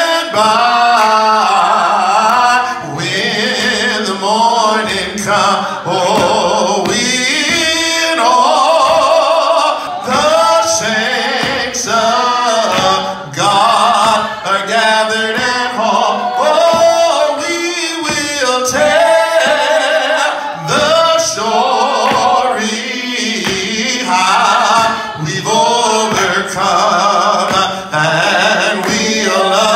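A man singing a gospel song, with long held and sliding notes.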